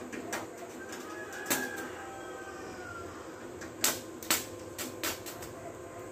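Stick (electric arc) welder tacking steel sheet on a truck cab floor: several short, sharp bursts as the arc is struck and broken, the loudest two about four seconds in.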